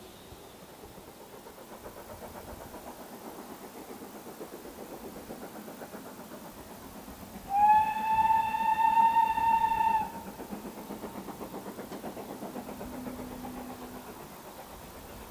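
BR Standard 4MT 2-6-0 No. 76017's steam whistle sounding one blast of about two and a half seconds, halfway through. Underneath it, the locomotive is heard working in the distance with a fast, even beat.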